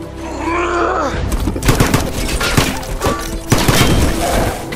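A quiet moment gives way about a second in to dense, rapid rifle fire from a firefight, many shots overlapping, which keeps up from then on.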